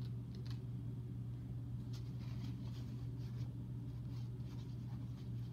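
Faint rustling and light clicks from hands handling paper towels and small plastic toy pieces, over a steady low hum.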